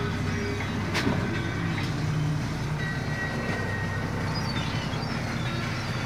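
Steady low drone of a fishing boat's engine, heard from inside the wheelhouse, with a single sharp knock about a second in.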